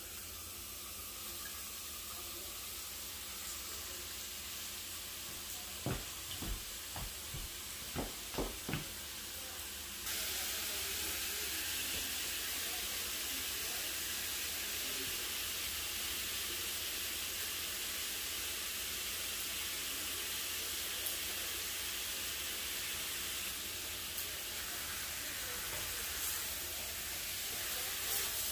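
Cubed pork sizzling in a wok over a gas flame as its fat starts to render out. A few sharp knocks come about six to nine seconds in, and the sizzle turns louder about ten seconds in. Near the end the pork is stirred with a wooden spatula.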